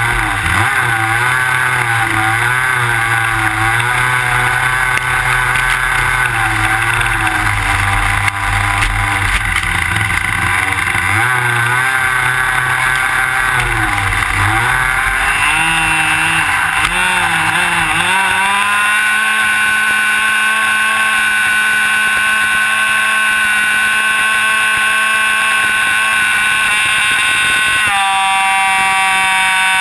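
Jett .90 two-stroke glow engine of an RC airplane running, heard close up from the plane's belly. For the first 18 seconds its pitch wavers up and down as the throttle is worked on the ground; then it climbs quickly to full throttle and holds a steady high pitch through the takeoff and climb, shifting briefly again near the end.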